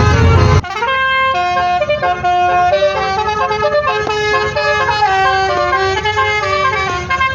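Basuri (telolet) multi-tone musical car horn playing a melody of held notes that step up and down in pitch. About half a second in, a louder, fuller sound cuts off abruptly as the melody starts.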